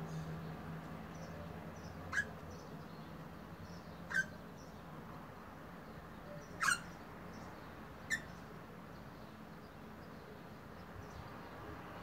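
An eastern rosella gives four short, sharp calls, about two seconds apart. The third call is the loudest.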